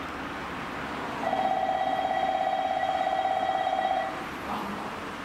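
Station platform train-approach warning bell, a rapid electric trill on a steady pitch, rings for about three seconds, starting about a second in, announcing an arriving train.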